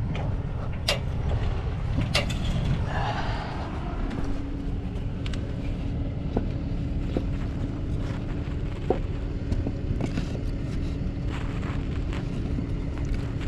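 Truck engine idling with a steady low rumble and hum, with a few sharp knocks and a brief scrape about three seconds in as blocks are set in place under the truck.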